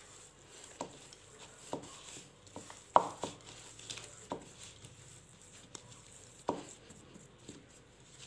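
Hands mixing crumbly naan khatai biscuit dough in a bowl: soft rubbing and pressing, with a few light knocks of hand or fingers against the bowl, the loudest about three seconds in.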